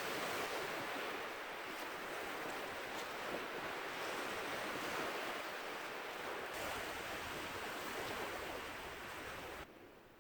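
Steady rush of ocean surf washing on a beach, mixed with wind. It drops away suddenly near the end.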